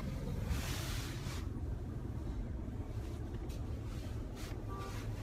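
Steady low rumble of a car's engine and tyres heard from inside the cabin, with a brief rush of hiss about a second in.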